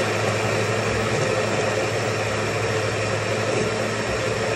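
Osterizer countertop blender running at a steady speed, blending a liquid lime dessert mixture.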